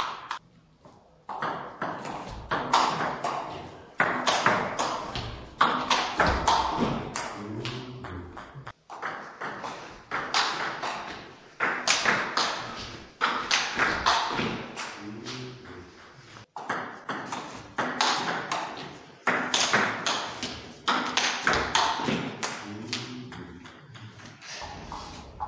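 Table tennis rallies: the ball clicks back and forth off the paddles and the table in quick runs, ringing in a large hall, with a few short breaks between points.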